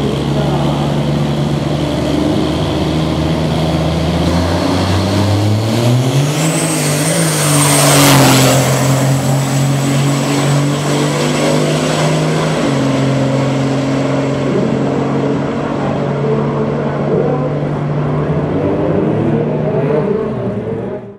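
Diesel drag-racing semi truck running steadily at the start line, then launching, its engine pitch rising about five seconds in and loudest around eight seconds as it pulls away. It holds a steady pull down the strip and fades toward the end.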